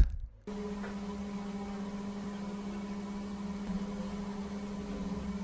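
A steady hum with a faint hiss, starting abruptly about half a second in.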